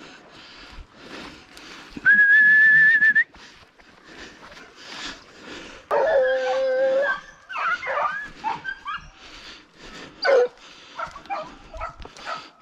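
A loud, steady whistle lasting about a second, then hunting hounds giving voice. One long, evenly pitched bay comes about six seconds in, followed by a string of whining yelps and short yips.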